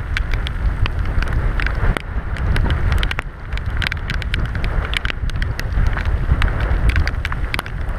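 Gusty wind buffeting the microphone over the hiss of rain, with many irregular sharp ticks of raindrops striking close by.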